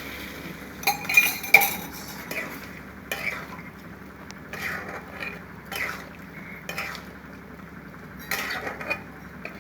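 A metal spoon or spatula scraping and knocking against a cooking pan while stirring chicken chilli, just after a cornflour-and-water slurry has gone in to thicken the sauce. There is a quick cluster of clinks about a second in, then a scrape or knock roughly once a second, with a few more near the end.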